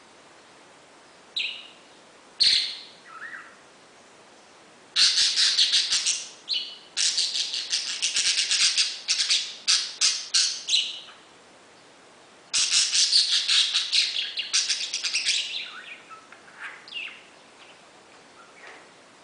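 Pet parakeet chirping and chattering. A few single calls come first, then two long runs of fast, dense chatter begin about five seconds in and about twelve seconds in, and it tapers off to scattered calls near the end.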